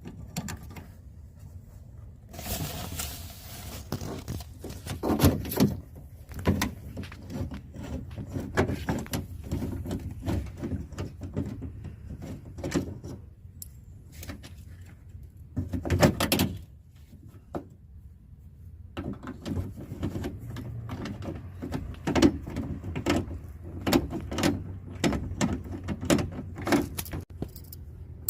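Irregular clicks, knocks and rattles of small metal parts being handled and worked inside a pickup truck's door, with a few short scraping stretches.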